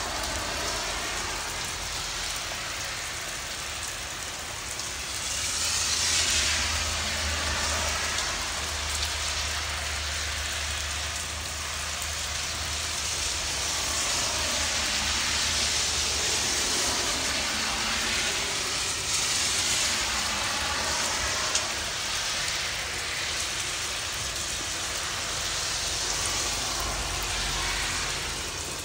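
Steady rain hiss that swells and fades several times, with a low rumble under it from about five to sixteen seconds in.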